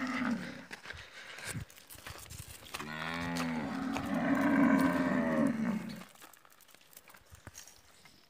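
Cows mooing: one moo tails off just after the start, then about three seconds in a cow gives a long moo that rises in pitch and holds for nearly three seconds. Faint clicks follow.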